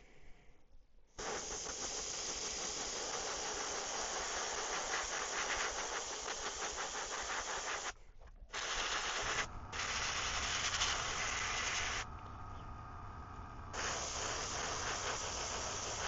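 Airbrush hissing as it sprays fluorescent blue paint, in several long passes with short breaks between them.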